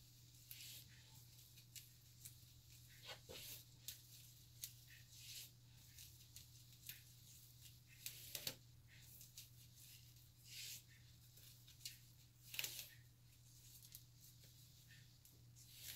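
Faint rustling and scratching of hair being braided by hand, with irregular sharp clicks and swishes as long fingernails work the micro box braids, over a steady low hum.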